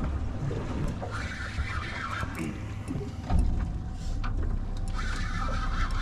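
Fishing reel being cranked and clicking as the line is worked in on a hooked tuna-sized fish, over a steady low rumble from the boat and wind.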